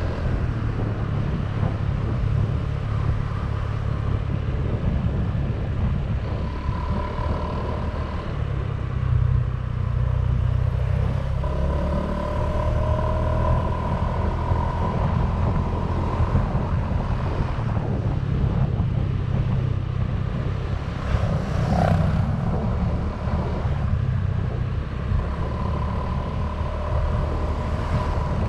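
Honda Vario 125 scooter's single-cylinder engine running steadily on the move through a KZR Puresound stock-style exhaust, heard from onboard.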